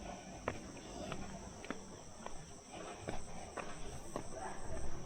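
Steady high chirring of insects in the rice fields, with footsteps as sharp clicks roughly every half second.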